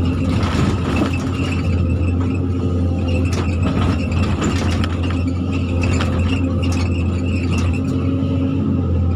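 Zoomlion hydraulic excavator's diesel engine running steadily under load while the bucket digs into earth and rock, with scattered scraping and clattering of stones.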